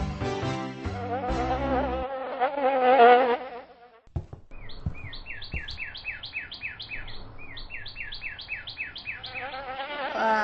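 Cartoon sound effect of a fly buzzing with a quickly wavering pitch, twice, over background music that ends about 2 s in. Between the two buzzes comes a run of short, high falling chirps, about four a second.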